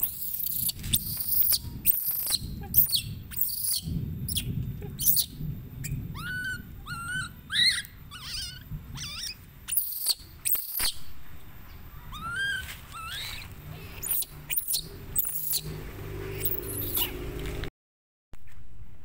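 Baby macaque screaming in many short, shrill cries, with a few rising-and-falling squealing calls in between. The sound drops out briefly near the end.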